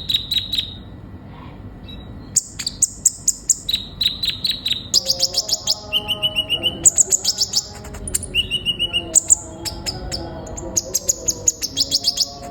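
A kolibri ninja sunbird singing: rapid runs of sharp, high chirps and short trills, in bursts with brief pauses between them.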